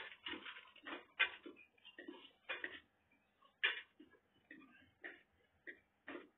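Close-up chewing and mouth sounds of someone eating fried chicken: irregular short smacks about two a second. A sharp clink of a spoon on a plate comes right at the start.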